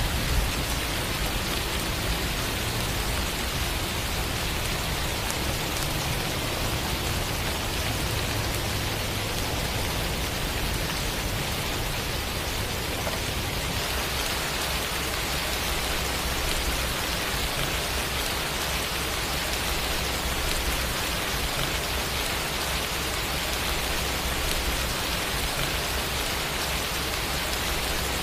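Steady rain falling, an even hiss of drops with a low rumble underneath.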